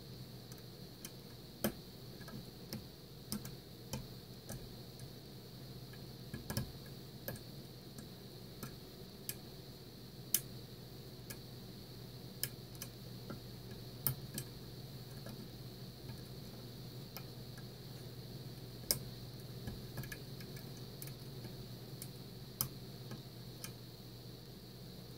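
Small sharp metallic clicks and ticks at irregular intervals as a lock pick works the serrated pins of a Mul-T-Lock Interactive cylinder held under tension, with a few louder clicks standing out among the fainter ones.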